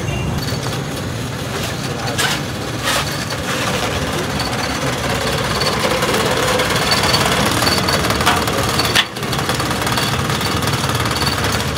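A small engine running close by with a rapid, rattling pulse. It dips sharply for a moment about nine seconds in.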